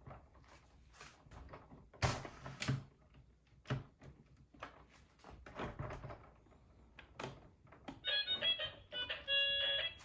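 Plastic toy pieces clicking and knocking as they are handled, a few separate taps. About two seconds before the end, a bright electronic tune of short stepping tones starts.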